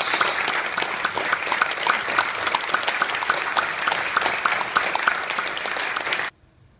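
Audience applauding, a dense clatter of many hands clapping that cuts off suddenly near the end.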